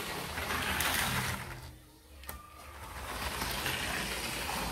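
Motorized LEGO City Cargo Train 60198 engine running along plastic track. It drops away to near quiet about two seconds in, then grows louder again as it comes back round.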